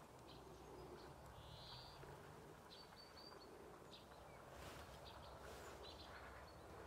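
Near silence with a few faint high bird chirps, a quick run of them about three seconds in.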